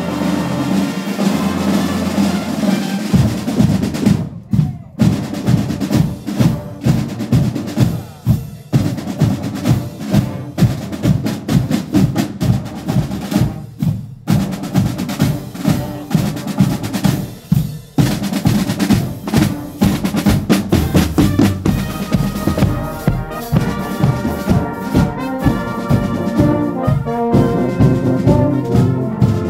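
Marching band's drumline playing a street cadence on snare and bass drums, with a few short breaks in the pattern. A held brass chord opens it, and brass comes back in near the end.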